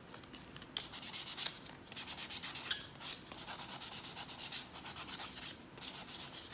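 Hand nail file scraping rapidly back and forth over a hard-set acrylic nail, starting about a second in. The filing shows a product that sets very hard and is difficult to file, typical of MMA acrylic.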